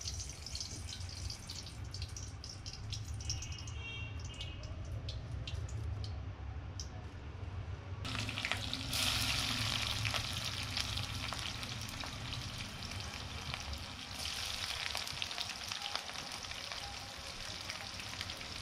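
Hot oil sizzling and crackling in a wok over a firewood stove. About eight seconds in the sound changes abruptly and the sizzle becomes louder and brighter.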